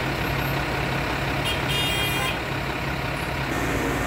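Fire truck engine idling with a steady low hum. About one and a half seconds in comes a brief high-pitched squeal lasting under a second.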